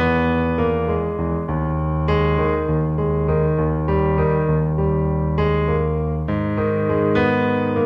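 Instrumental background music: keyboard chords over held bass notes, with new chords coming in every second or so.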